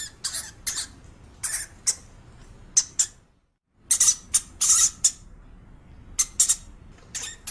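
A quick series of short, high-pitched animal squeaks and squeals, broken by a moment of dead silence about three and a half seconds in.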